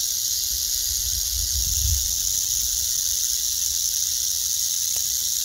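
Timber rattlesnake rattling its tail in a steady, unbroken high buzz: its warning at being approached.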